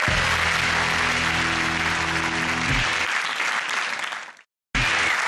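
Studio audience applauding, with a low held music chord underneath that fades out about three seconds in. The sound cuts out for a moment just before the end, then the applause picks up again.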